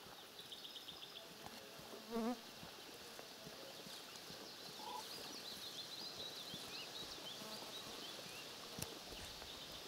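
Crane chicks peeping faintly: a run of short, high chirps that grows busier in the second half, with one brief lower wavering call about two seconds in.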